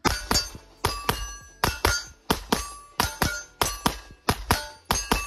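Smith & Wesson M&P9 Performance Center Carry Comp 9mm pistol with a ported barrel, fired fast in pairs: double taps about a quarter second apart, a new pair every 0.7 s or so. Many shots are followed by a metallic ringing, as steel targets are hit.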